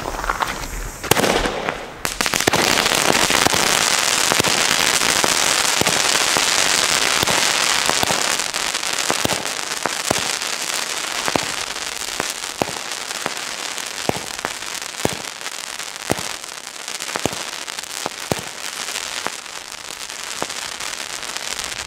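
Xplode Crossfire crossette firework going off. A couple of short pops come first, then about two seconds in a loud, dense hissing crackle begins. After about eight seconds it thins into a run of separate sharp cracks and pops as the stars split.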